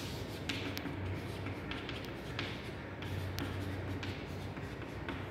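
Chalk writing on a chalkboard: short scratches and taps of the chalk as symbols are written, over a low steady hum.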